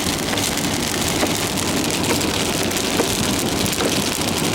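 Heavy rain falling on a moving car's roof and windscreen, heard inside the cabin: a steady hiss full of small drop ticks, over the low noise of tyres on the wet road.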